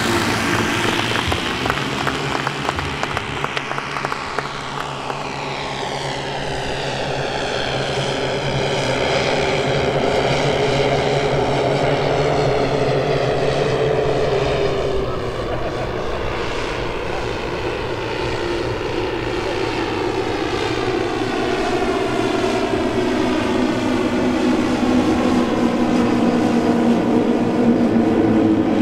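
The twelve 10 cc OS model engines of a 1:10 scale Dornier Do X RC flying boat run together in a steady propeller drone as the model flies. It dips in loudness about halfway through and grows louder again near the end as the model comes close overhead.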